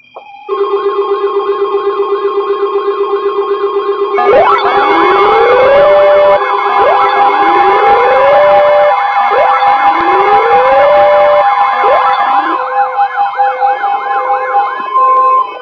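Layered electronic siren sounds: a fast warbling yelp over steady tones, joined about four seconds in by a wail that rises and holds, repeating roughly every two and a half seconds.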